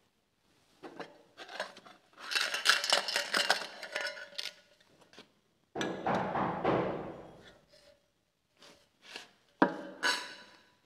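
Knocker blows on a heavy church door, echoing: a rapid run of knocks about two seconds in, a heavier bang near six seconds, and another sharp knock with a short run of knocks near the end.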